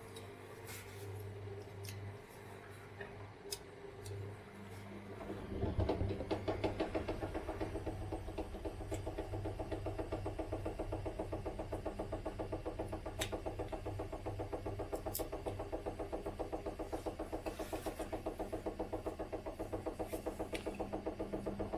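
Zanussi IZ 16 S front-loading washing machine running. About five seconds in, its drum speeds up into a spin with a fast, even pulsing that goes on steadily. The spin shakes the machine hard, with sharp rattles over it, which the owner partly puts down to the shock absorbers.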